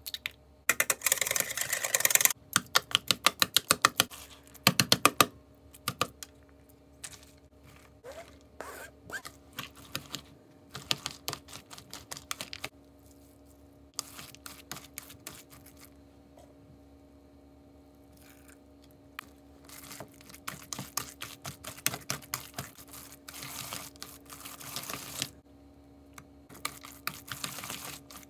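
Spoon clicking and scraping rapidly against a bowl while a soft tofu and chopped-vegetable filling is stirred, in bursts of fast mixing with short pauses.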